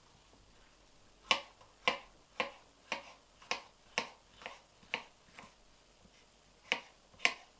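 Kitchen knife chopping through red capsicum pepper onto a wooden cutting board: a run of sharp knocks, about two a second, starting about a second in, a short pause, then two more near the end.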